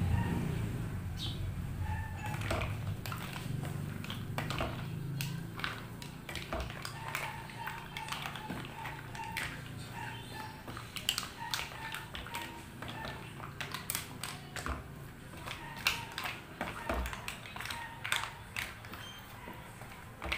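Wooden spatula stirring mussels in their shells in a nonstick frying pan: irregular clicks and clacks of shells knocking together and the spatula tapping the pan. A low hum fades out over the first few seconds.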